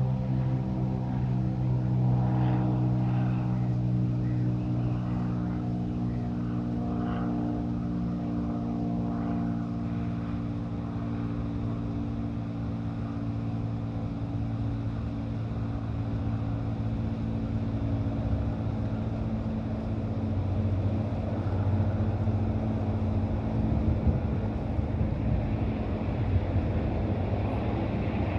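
A steady low engine drone that slowly fades away over the first half, leaving an uneven rushing noise.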